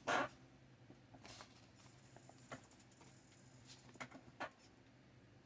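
A brief rustle, then a few scattered light clicks and taps of small wooden model-kit pieces being handled.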